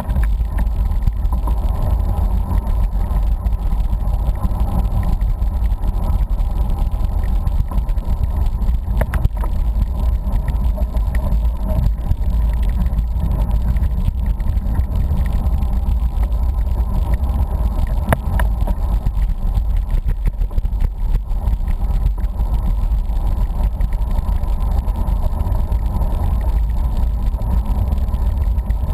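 Steady low rumble of wind buffeting a microphone while riding a road bicycle at speed, mixed with tyre and road noise and an occasional faint click.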